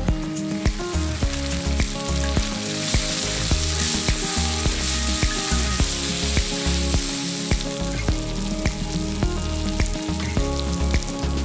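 Chicken and squash sizzling in a hot carbon-steel plow disc pan while being stirred with a wooden spatula. Background music plays underneath.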